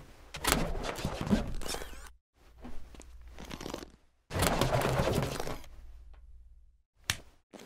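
Latex modelling balloons being twisted into balloon animals: rubber squeaking and rubbing in three bursts, with a short click near the end.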